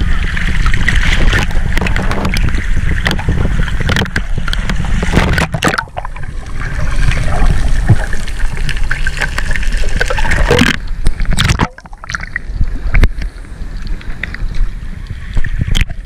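Seawater sloshing and splashing around a handheld waterproof action camera at the surface and underwater, with gurgling and crackling clicks. The sound changes abruptly a few times.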